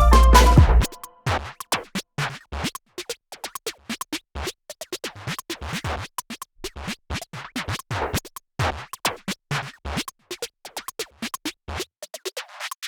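Background electronic music. The full mix drops out about a second in, leaving a sparse beat of short, sharp hits with scratching.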